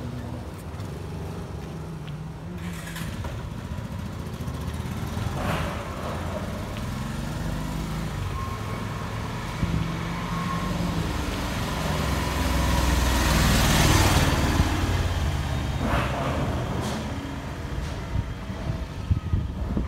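Street traffic: motor vehicles running and passing on the road, one passing close and loudest about two-thirds of the way through.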